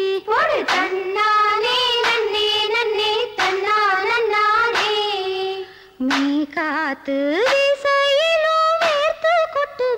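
A woman's voice singing a Tamil kummi folk song in long held, wavering notes, with a short break about six seconds in.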